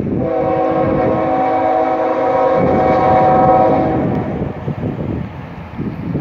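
Union Pacific diesel locomotive's air horn sounding one long chord of several notes for about four seconds, then breaking off, leaving the rumble of the approaching train. It is blowing for a grade crossing.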